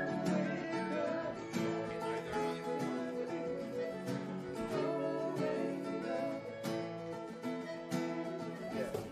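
Acoustic guitar strummed, playing chords.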